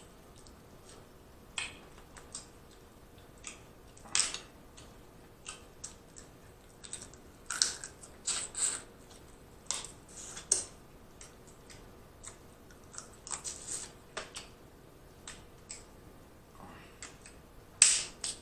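Close-miked eating sounds: boiled shrimp being peeled by hand and chewed, heard as scattered short wet clicks, smacks and crackles at an uneven pace, the loudest shortly before the end.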